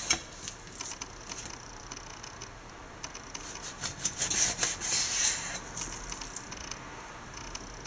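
Kitchen knife slicing through a raw wild pink salmon fillet, making rasping strokes in two spells: one near the start and another from about three to five and a half seconds in.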